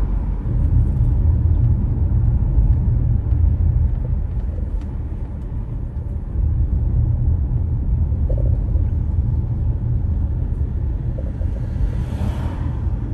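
Steady low rumble of a car driving: engine and road noise.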